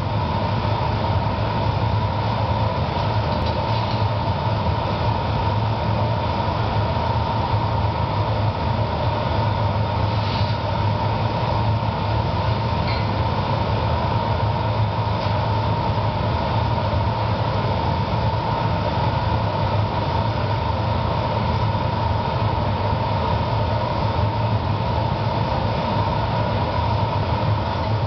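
Steady roar of a glassblowing studio's gas-fired furnace burners and blowers, with a constant low hum and a steady whine; a few faint clinks sit on top of it.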